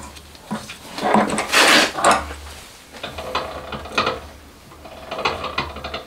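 Handling noises at a milling machine: metal parts clinking, tapping and rustling in scattered short bursts as an optical centering scope is fitted to the spindle and adjusted. The loudest clatter comes about a second and a half in.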